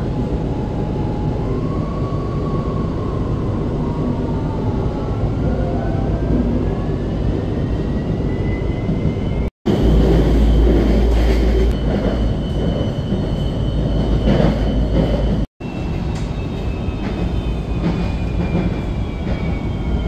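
RapidKL LRT train heard from inside the carriage: a steady running rumble with the whine of its electric traction motors rising in pitch as it gathers speed. After a cut there is a louder, deeper rumble as another train runs past alongside. Near the end the motor whine slowly falls as the train slows.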